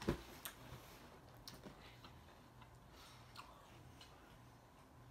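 A sharp knock right at the start, then a few faint, scattered clicks and ticks.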